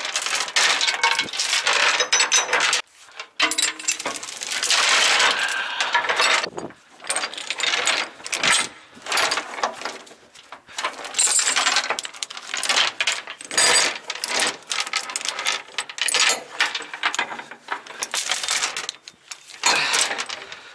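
Steel load chains rattling and clanking against the machine and the trailer's steel deck as they are hooked to the tie-down points and pulled tight, in irregular bursts with short pauses.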